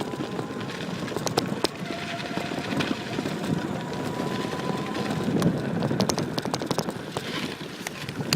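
Home-built electric bicycle being ridden: steady wind and rolling noise with scattered clicks and rattles, and a faint motor whine for a couple of seconds in the middle.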